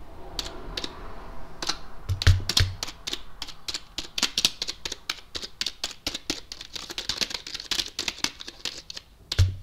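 Keys of an A+ EL1 gaming keyboard being typed on to show how it sounds, a few clicks at first, then a fast, continuous clatter. There are two dull thumps about two seconds in and another near the end.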